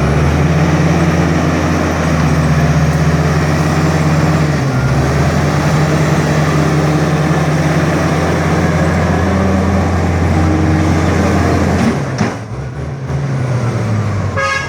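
Heavy diesel engine running hard under load, its low note rising and falling slightly in pitch, then dropping away about twelve seconds in.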